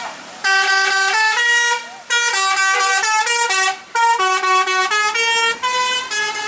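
Basuri 'telolet' musical bus horn playing a tune: quick notes stepping up and down in pitch, in phrases of about a second and a half with short breaks between.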